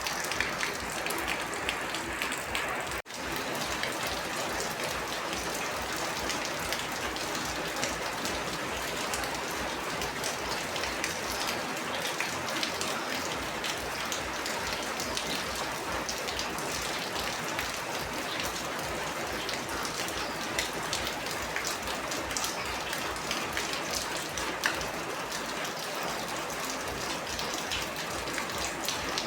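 Steady rain falling, a dense patter of drops striking a surface, with a momentary drop-out about three seconds in.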